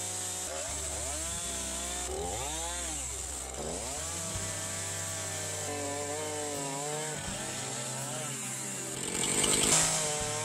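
Two-stroke Husqvarna chainsaw cutting through wood. The engine's pitch rises and falls as the chain bites and bogs in the cut, and it grows loudest and harshest just before the end.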